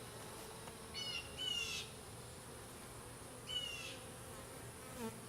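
Honeybees buzzing as a steady low hum around an opened hive. A bird calls briefly three times over it: two calls close together about a second in, and one more a couple of seconds later.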